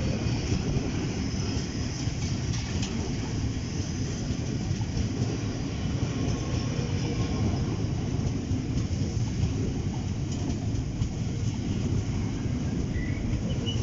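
A train running past on the line, a steady low rumble of wheels on rails.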